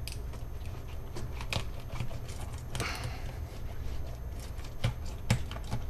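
Fillet knife slicing along a yellowtail snapper's backbone and cutting through the rib bones, with scattered sharp clicks and scrapes from the blade against the bones and the plastic cutting board. A low steady hum runs underneath.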